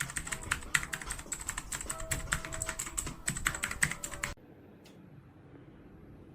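Fast typing on a mechanical keyboard fitted with clear keycaps: a dense run of key clicks that stops suddenly a little over four seconds in.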